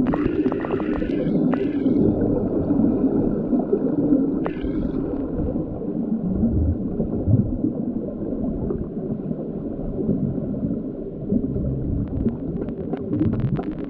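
Muffled sound of a swimming pool heard through a submerged camera: a steady low churning of water stirred by swimmers, with bubbling and scattered clicks and knocks. A quick run of clicks comes near the end.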